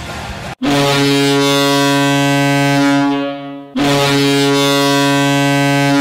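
Ice hockey arena goal horn blowing two long, deep, steady blasts of about three seconds each. The first starts about half a second in, and the second follows right after it.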